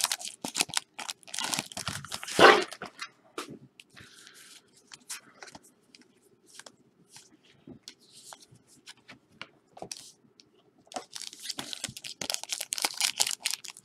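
Trading card pack wrappers being torn open and crinkled, with cards handled and tapped together. The loudest tearing comes in the first few seconds and again from about eleven seconds in, with scattered light ticks and rustles between.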